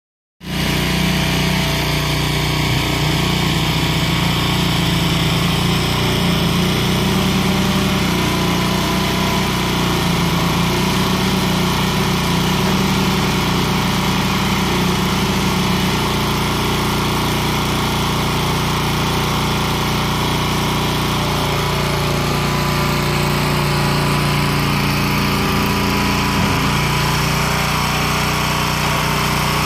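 Small gasoline engine of a Vermeer walk-behind chain trencher running steadily while the machine is driven.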